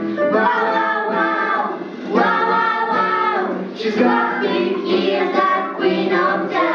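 A group of children singing a song together.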